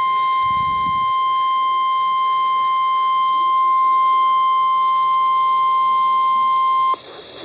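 NOAA Weather Radio's 1050 Hz warning alarm tone: a single steady, loud high-pitched tone that cuts off abruptly about seven seconds in, leaving faint radio hiss. The tone signals that a warning message follows, here a severe thunderstorm warning.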